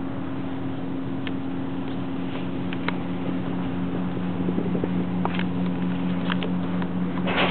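Steady drone of a boat's engine with a constant low hum, under a wash of noise and a few scattered light clicks and knocks. There is a short louder rustle or knock near the end.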